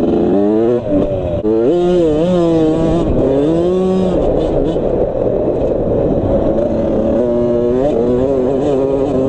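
Suzuki RM85 dirt bike's 85 cc single-cylinder two-stroke engine revving up and down as it is ridden, its pitch climbing and dropping several times in the first few seconds, holding steadier, then rising again near the end.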